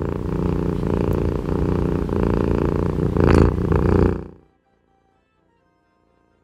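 A low, steady pulsing rumble, briefly louder a little over three seconds in, that fades out after about four seconds.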